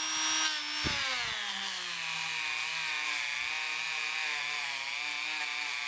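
Handheld rotary tool spinning a small wire brush against the corroded steel of an old screwdriver's handle frame, scrubbing off the corrosion. Its motor whine drops in pitch over the first second or two, then holds steady under a scratchy hiss of wire on metal, with a brief knock about a second in.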